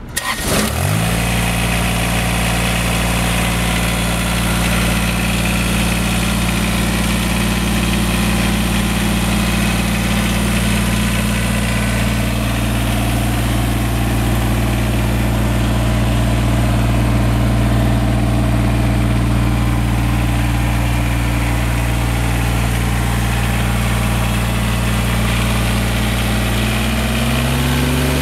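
Kubota BX2230 compact tractor's three-cylinder diesel engine starting, then idling steadily. Near the end the engine speed rises.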